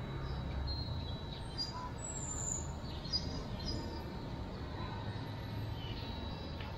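Faint, steady high whine of an RC Era C138 Bell 206 mini RC helicopter in flight, over a low outdoor rumble, with birds chirping a few times.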